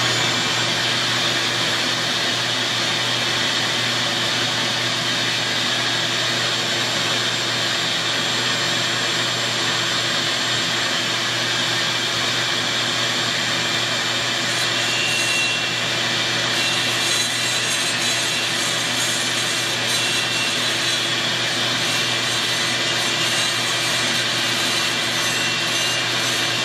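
Shop vacuum running steadily, with a handheld rotary tool's burr grinding the exhaust port of an aluminium 372XP-clone chainsaw cylinder, porting it wider; the grinding chatter joins partway through.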